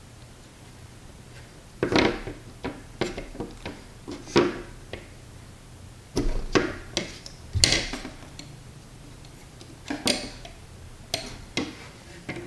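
Irregular clicks and knocks of small hard parts being handled and fitted together: a 3D-printed camera mount being seated in a carbon-fibre drone frame.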